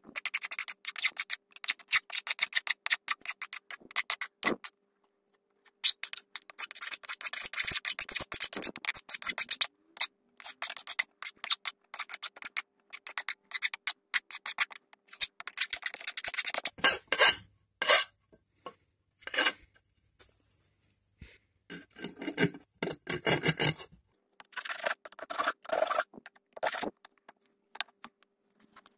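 Steel hand file rasping back and forth over the head of a scissors pivot screw held in a wooden board, touching up its damaged head. The strokes come fast in long runs with a short break about five seconds in. In the second half they turn slower and more spaced.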